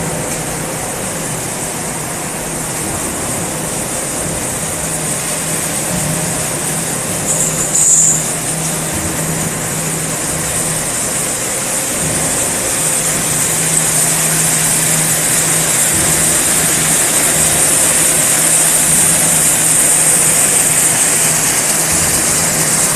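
Transformer core slitting line running steadily: a constant low hum under a high hiss that grows stronger over the second half, with a brief sharp high-pitched squeal about eight seconds in.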